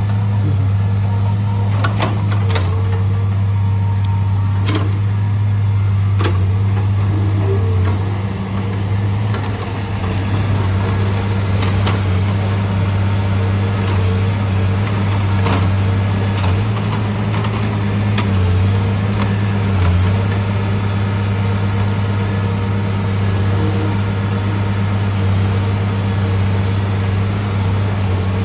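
Caterpillar log loader's diesel engine running steadily with a strong low hum, with several sharp knocks and clanks, mostly in the first half, as the grapple handles logs.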